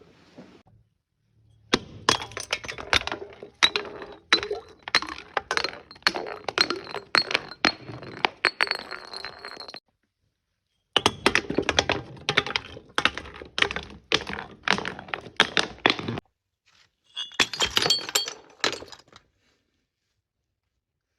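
Glass being crushed and broken: rapid cracks and clinks with a faint ringing, in two long runs and a short third one near the end.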